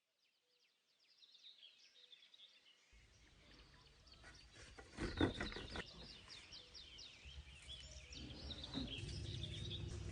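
Small birds chirping and twittering, fading in from silence, with a low rumble that starts about three seconds in and a few sharp clicks.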